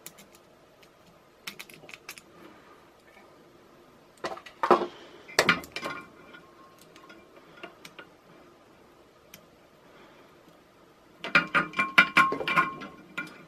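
Small metal parts clicking and clinking in the hands as a bolt is fitted into a DC motor's metal brush plate: a cluster of clicks about four to six seconds in and a busier run of clinks near the end.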